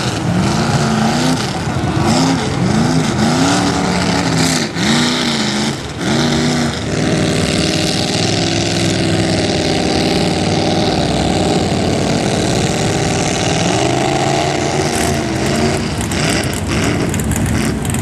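A lifted mud truck's engine revs hard in quick repeated bursts for the first several seconds, then holds steady at high revs as it drives through the water-filled mud pit. A broad hiss of churned water runs underneath.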